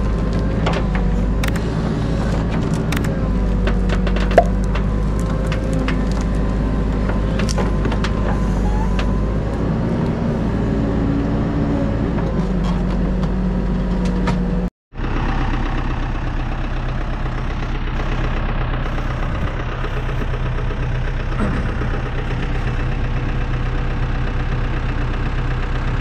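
Hepco HLB95B backhoe loader's diesel engine running steadily under load while the backhoe arm wrenches a tree stump from the ground, with sharp cracks and snaps of roots and wood in the first half. The sound drops out abruptly for a moment just before halfway, then the engine runs on steadily.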